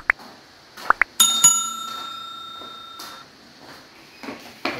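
Subscribe-button notification-bell sound effect: a few quick clicks, then a bell struck twice in quick succession that rings out for about two seconds.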